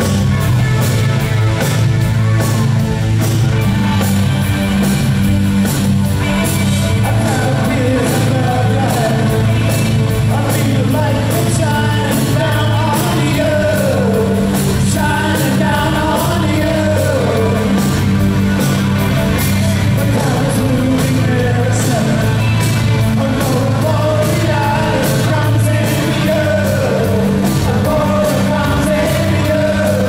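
Live rock band playing with a male lead singer. Singing runs over the band, most clearly from several seconds in.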